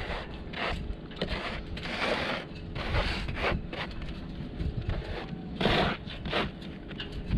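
Sand being scooped with a plastic scoop and scattered onto a wet deck coating: irregular scrapes and rushing swishes, several times.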